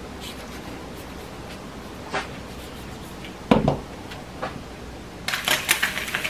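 Knife cutting through an avocado's skin on a plastic cutting board, with a knock on the board about three and a half seconds in. Near the end, sizzling and crackling of sliced luncheon meat frying in a pan.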